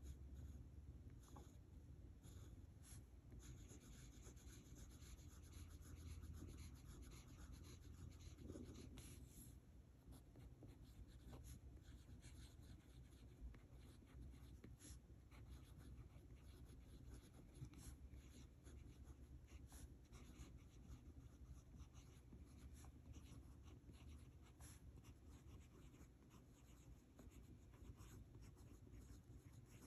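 Kaweco Sport fountain pen with a broad steel nib writing on grid notebook paper: faint scratching of the nib, with many small ticks as strokes start and lift.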